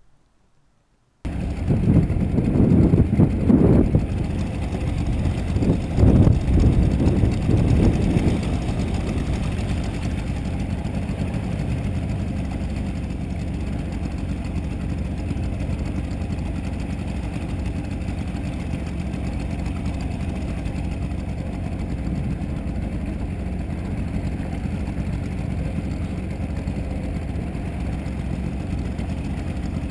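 Suzuki DT-40 two-stroke outboard running as the skiff moves, starting abruptly about a second in. It is louder and uneven with surges of noise over the first several seconds, then settles to a steady run.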